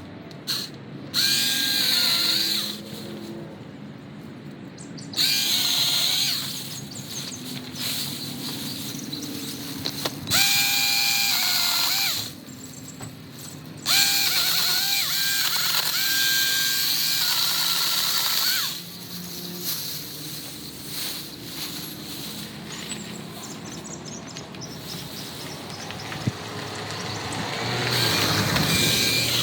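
Small battery mini chainsaw's electric motor running in repeated cutting bursts of a few seconds each as it saws through branches, its whine dipping in pitch as the chain bites into the wood, with quieter pauses between cuts.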